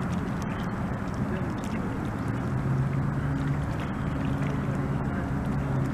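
Steady rumble of wind on the microphone, joined about two seconds in by a steady low motor hum.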